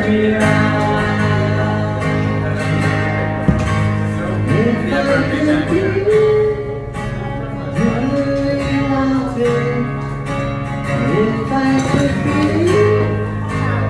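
A singer performing live over strummed acoustic guitar, the voice sliding through sung phrases above steady chords.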